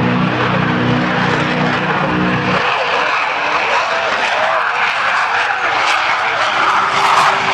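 Aircraft engines running loud as an aeroplane flies past, a broad rushing noise. A low steady hum underneath stops about two and a half seconds in, leaving the rushing noise.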